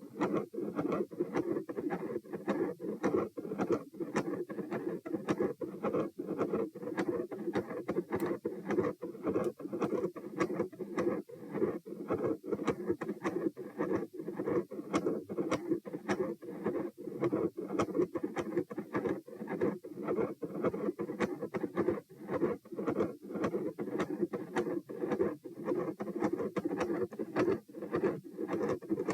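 Heart sounds heard over the pulmonic area: a quiet, continuous machinery murmur, the kind typical of a patent ductus arteriosus. Sharp electrical disturbance clicks come through over it again and again.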